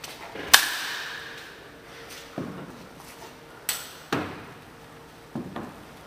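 Airsoft gunfire: about five separate sharp cracks and knocks, the loudest about half a second in, each with an echoing tail in a large indoor arena.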